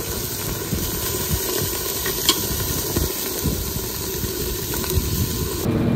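Chicken pieces sizzling on a hot grill: a steady crackling hiss of fat and marinade cooking, with scattered sharp pops. The high sizzle drops away near the end.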